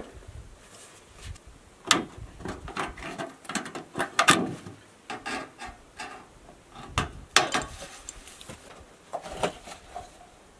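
Thin sheet-metal roofing being bent by hand and cut with tin snips: an irregular run of sharp snips, clicks and metallic scrapes as the sheet flexes. The loudest snaps come about two, four and seven seconds in.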